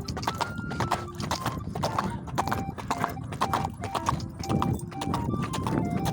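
Hoofbeats of a horse cantering, a quick unbroken run of hoof strikes.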